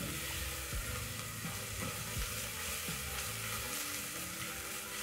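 Chopped onion, leek and garlic sizzling steadily in hot oil in a non-stick pot, stirred now and then with a silicone spatula.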